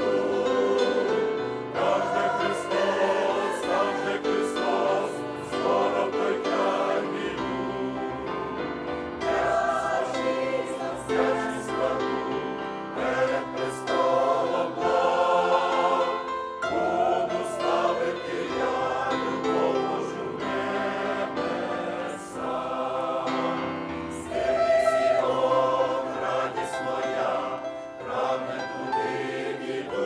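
Mixed choir of men's and women's voices singing a Ukrainian hymn in several parts.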